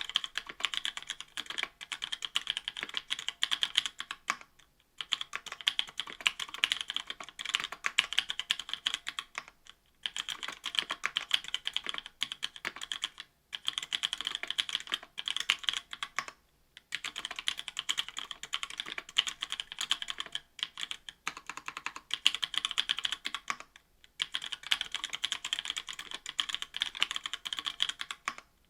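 Typing on an Octagon V3 mechanical keyboard fitted with stock, unlubed Kailh Pro Burgundy linear switches in an aluminium plate and GMK Olivia++ keycaps. Rapid keystroke clacks come in runs of a few seconds, broken by brief pauses about every three to five seconds.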